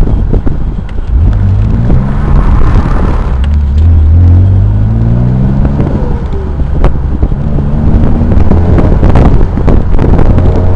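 Twin-turbocharged 2004 Nissan 350Z roadster's 3.5-litre V6 pulling hard on track, its pitch climbing several times as the revs rise, with heavy low rumble and thumps over it.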